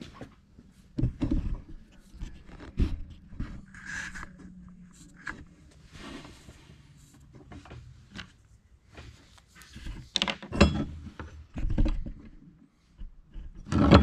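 Steel hydraulic tubing being handled on a wooden workbench: irregular knocks and clunks of metal line against wood, with the loudest about a second in, twice around ten seconds, and near twelve seconds.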